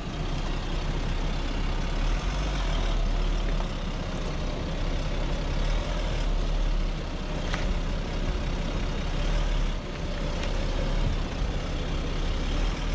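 Land Rover Discovery's 3-litre turbo V6 diesel running at low revs as the heavy 4x4 crawls over rock steps, a steady low rumble. A single sharp knock sounds about seven and a half seconds in.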